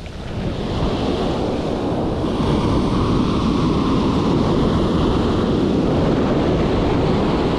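Ocean surf breaking and washing up the beach in a steady rush that swells about a second in, with wind buffeting the microphone.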